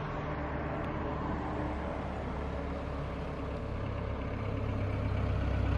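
Classic American car's engine running with a steady low rumble as the car drives toward the microphone, growing louder over the last couple of seconds.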